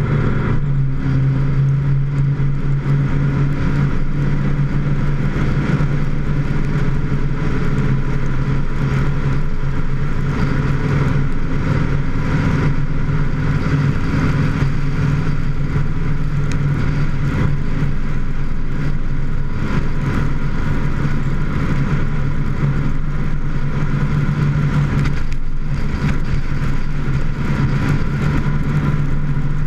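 Vehicle engine running at a steady cruising speed, heard close up from the hood, under wind and road noise. The engine note shifts a little twice.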